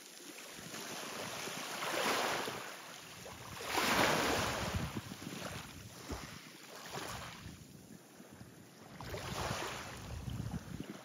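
Harbour waves washing and lapping close by, swelling and falling away every two to three seconds, with wind on the microphone.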